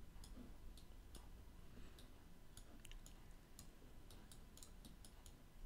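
Faint, irregular clicks of a computer mouse, about a dozen short clicks, over near-silent room tone.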